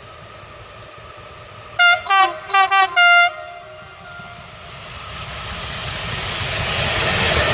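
Train horn sounding five short blasts in quick succession, switching between two close pitches, followed by an approaching train whose rumble grows steadily louder.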